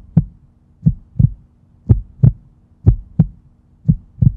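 Heartbeat sound effect: a slow lub-dub of paired low thumps, about one beat a second, over a faint steady hum.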